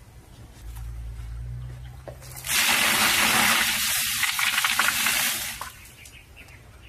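Water gushing loudly for about three seconds, starting about two and a half seconds in and stopping abruptly, after a low rumble.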